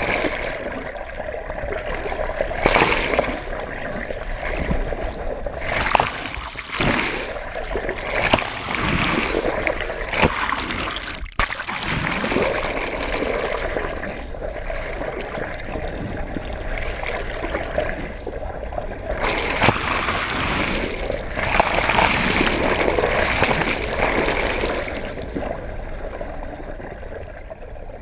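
Sea water sloshing and bubbling around a GoPro camera held just under the surface, in irregular rushing surges with splashy moments and a brief dropout about eleven seconds in.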